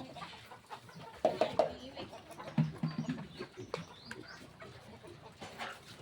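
Backyard chickens clucking, with short, scattered calls, a small cluster of them a little over a second in and again near the middle.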